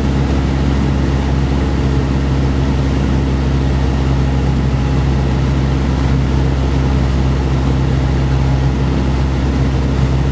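Mooney M20J's four-cylinder Lycoming engine and propeller running steadily on final approach, heard from inside the cabin; the engine is fitted with a Power Flow tuned exhaust and Quiet Pipe muffler.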